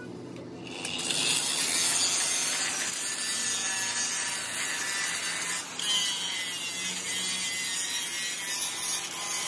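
Angle grinder with an abrasive disc grinding down weld beads on a steel truck axle beam. The grinding starts about a second in and runs steadily, with one very brief break about halfway through.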